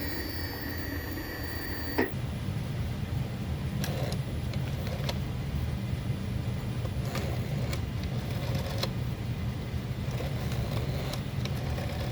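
Senior LE CD repair machine: a steady high beep ends with a click about two seconds in, then its motor runs with a steady low hum and a few faint ticks as it resurfaces a scratched disc on its medium setting.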